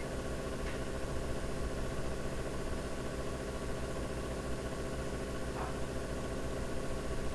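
A steady hum made of several held tones over a low rumble, unchanging throughout.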